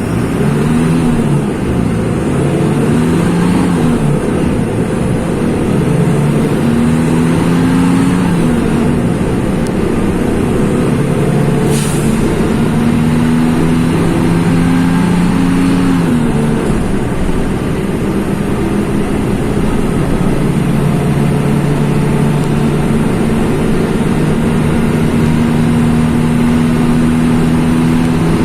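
Mercedes-Benz OF-1724 bus's OM-926 LA six-cylinder turbo-diesel pulling away and accelerating through the gears of its manual gearbox, the engine note climbing and then dropping at each gear change before settling to a steadier run. A single short click sounds about halfway through.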